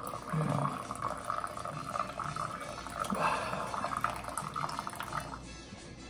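Hot coffee poured in a steady stream from a stainless steel French-press coffee maker into a ceramic mug, the pouring ending about five seconds in. Faint music plays behind it.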